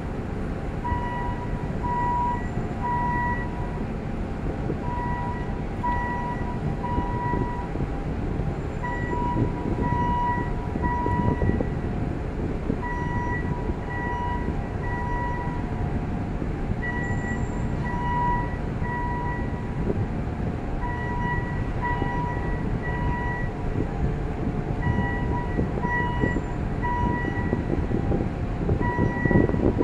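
An electronic warning beeper, the kind fitted to port machinery, sounding in short repeated beeps with irregular pauses, over a steady low rumble of engines and machinery.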